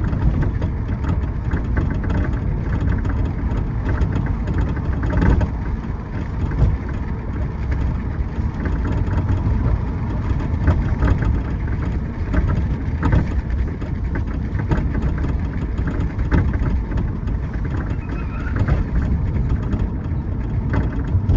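A 2011 Audi A5 Quattro on the move, with a steady road and engine rumble and irregular sharp clicks over it. The clicks are the rear passenger-side suspension clicking, which the owner suspects comes from the upper part of the shock or the sway bar.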